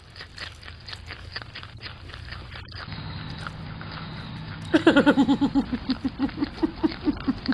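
Crunchy chewing, a fast run of crisp clicks for the first couple of seconds, then a steady hum, and from about five seconds in a rapid string of short vocal sounds, about five a second.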